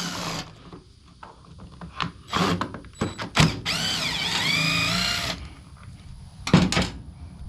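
Cordless drill or electric screwdriver whining for about a second and a half, its pitch dipping and rising as it backs a screw out of a leaf blower's plastic trigger housing. Knocks and clicks of the plastic parts being handled come before and after it.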